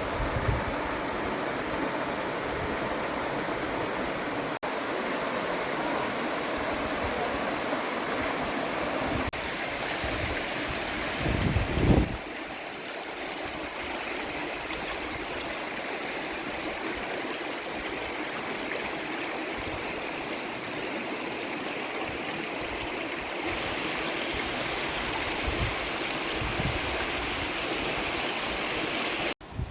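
Stream water rushing steadily over rocks, a continuous full rush with a short low rumble about twelve seconds in.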